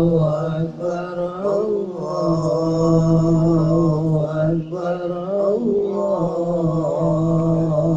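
A man's voice chanting in long held notes that slide between pitches now and then, with a few short breaks.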